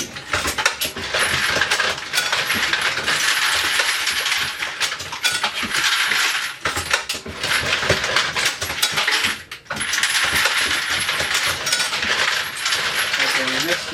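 Continuous metallic jangling and clinking of brass cases and bullets tumbling in the feeders of a Dillon XL650 progressive reloading press as it runs, with brief breaks about six and a half and nine and a half seconds in.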